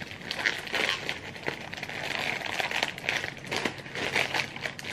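A printed plastic snack bag and the packets inside it crinkling and rustling as hands rummage through them, in quick irregular crackles.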